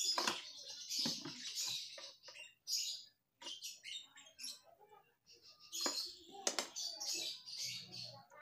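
Plastic air filter box cover of a Honda Vario scooter being unscrewed and pried loose by hand: irregular clicks, scrapes and rattles of plastic, in two main flurries.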